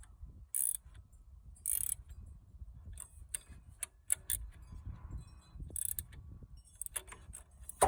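A hand socket ratchet clicking in short runs as it tightens the adjusting bolt on an aftermarket alternator bracket, pulling the alternator forward to tension the belt. There are smaller metal clicks between the runs.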